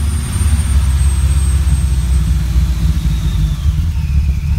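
Supercharged Subaru EJ25 flat-four with large custom cams idling at about 1200 rpm, heard from inside the cabin. It is a steady low running sound, with a faint high whine that drops in pitch near the end.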